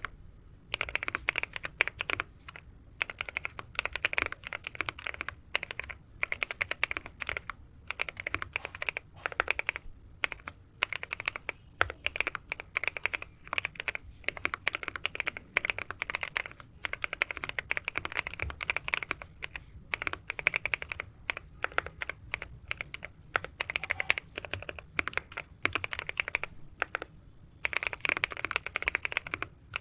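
Typing on a mechanical keyboard (Sugar 65) fitted with Attack Shark Jelly Green linear switches: fast runs of keystrokes with a poppy click on each press, broken by short pauses every few seconds.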